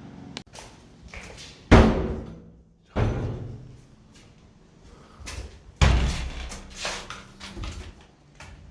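Three loud bangs, each with a short echoing tail, followed by a few lighter knocks near the end.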